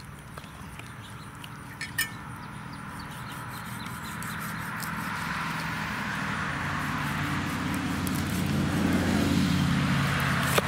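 A motor vehicle's engine and road noise, growing steadily louder as it approaches. A couple of sharp clicks about two seconds in.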